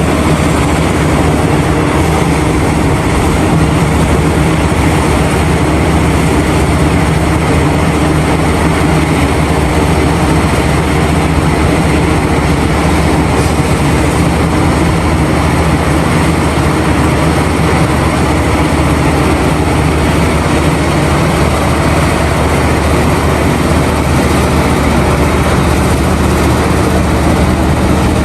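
Heavy diesel engines of large mining excavators and haul trucks running steadily at a working pace.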